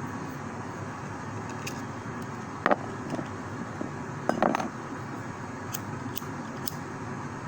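Small diecast toy cars being handled: a few light clicks and clinks, the loudest a sharp one a little under three seconds in and a short cluster about four and a half seconds in, over a steady background rumble.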